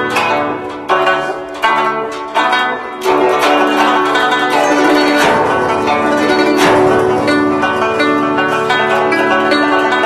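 Guzheng being played: four sharp accented plucks in the first three seconds, then a fast, dense run of notes.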